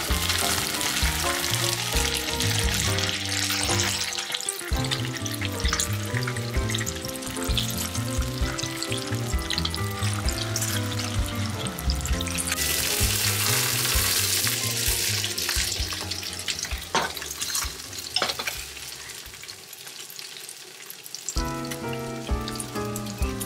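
Salmon pieces dusted with potato starch sizzling and crackling in oil in a frying pan. The sizzle is loudest for a few seconds in the middle.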